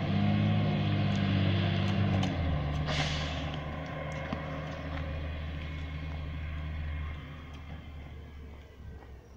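Diesel engine of a recycling truck running steadily, its pitch dropping about two seconds in, with a short hiss about a second later; the engine fades out near the end.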